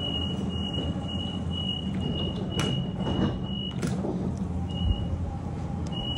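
Sydney Waratah Series 2 train door warning beeps: a run of quick high beeps, about three a second, as the sliding doors close, with two sharp knocks about two and a half and four seconds in. The beeps then drop to single beeps about a second and a half apart, as the door fails to close properly, which the passenger takes for a door fault. A steady low hum from the train runs underneath.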